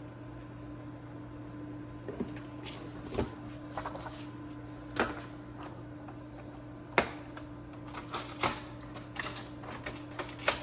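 About a dozen irregular short clicks and light knocks of hand handling, bunching up near the end, over a steady low hum.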